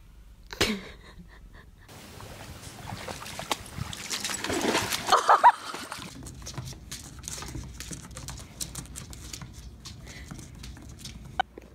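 Cat's paws and claws clattering and skittering on a wooden tabletop as it pounces after a laser dot: many quick sharp clicks. About halfway through, a louder short sound wavers in pitch.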